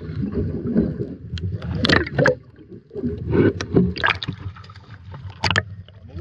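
Sea water sloshing and splashing around an action camera held at the surface as it goes under and comes back out: a muffled rumble broken by several sharp splashes.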